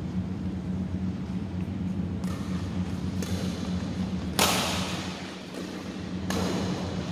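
Badminton rackets striking a shuttlecock in a doubles rally: four sharp hits roughly a second apart, the third much louder than the rest, over a steady low hum.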